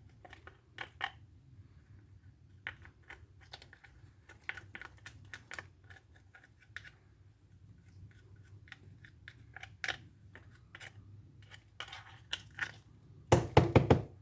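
Irregular light clicks and scrapes of a small cleaning tool picking packed sawdust and debris out of a chainsaw's chain-brake and clutch area, with a louder burst of scraping near the end.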